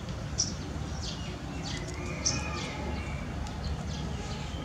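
Small birds chirping in short, repeated calls, with a brief held whistle about halfway through, over a steady low rumble.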